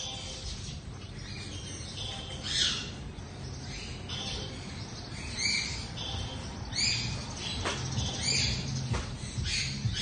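Sun conure giving short chirping calls, about five spread through, each rising and falling in pitch, over a low steady background hum.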